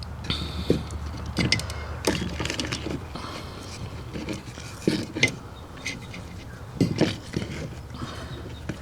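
Irregular clicks and light knocks as the cables and plastic parts of a car window regulator are handled and fitted by hand.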